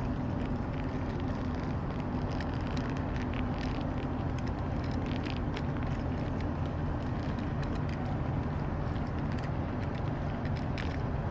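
Model goods train running on the layout track: a steady low hum throughout, with scattered sharp clicks of the wheels over rail joints and points.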